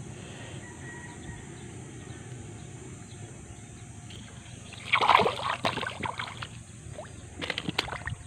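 Water splashing at a rubber inner-tube float, with one loud splash about five seconds in and a few smaller splashes near the end.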